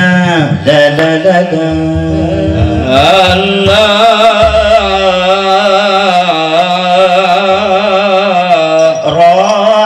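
Men's voices chanting Arabic devotional verses through microphones and a PA, in long, wavering, ornamented held notes.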